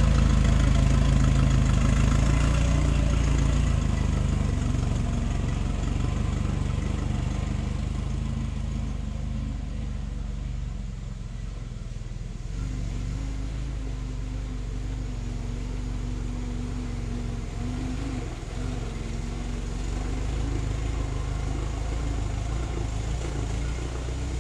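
Ford Model T's four-cylinder engine running as the car drives. The sound is loudest at the start, fades gradually over the first ten seconds, then runs steadily, with a steady hum from about halfway through.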